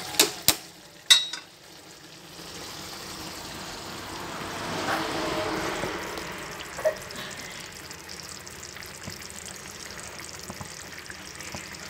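Pork pieces sizzling and bubbling in a pan of braising sauce on a gas burner as the sauce reduces, stirred with a wooden spatula. Three sharp knocks against the pan come in the first second and a half.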